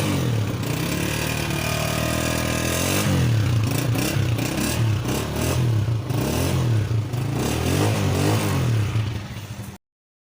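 Honda CG125's single-cylinder four-stroke engine running and being revved, its pitch rising and falling about once a second in repeated blips. The sound cuts off abruptly near the end.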